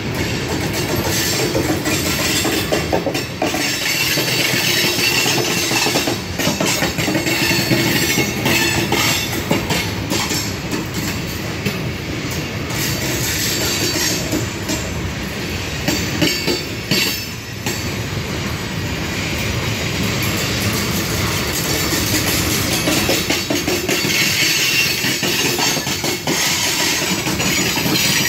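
Train cars rolling past: a steady rumble of wheels on rail with clickety-clack over the rail joints, and now and then a high wheel squeal.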